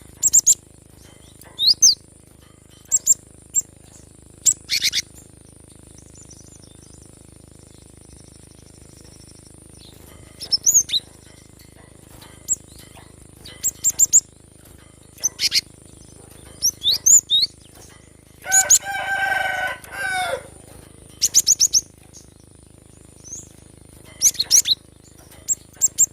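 Cinereous tit (gelatik batu) giving short, sharp high chirps and call notes in scattered clusters every second or two. A rooster crows once for about two seconds past the middle, and a faint steady high tone runs underneath.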